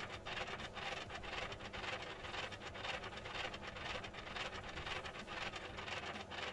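Cement mixer running, its drum turning with mortar tumbling inside: a steady gritty churning with rapid, irregular clicks and clatters.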